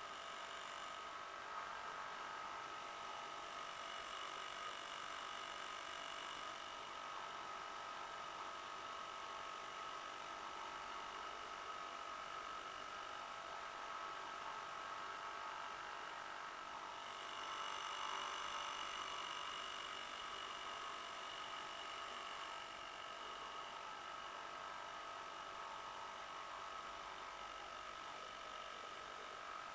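A 50-year-old Johnson 2 HP Seahorse two-stroke outboard motor running steadily, heard as a thin, high-pitched hum that swells a little for a few seconds past the middle.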